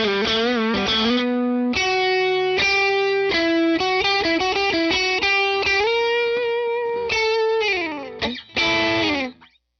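Rosewood Telecaster electric guitar played through a Fender SuperSonic 22 tube combo amp with no effects: a single-note lead line with vibrato and held, bent notes. Near the end one note slides down in pitch, and after a short break a last note rings briefly and stops.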